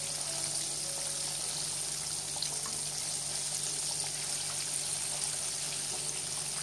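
Batter-coated chicken pieces deep-frying in hot oil in a cast-iron pan: a steady sizzle and bubbling.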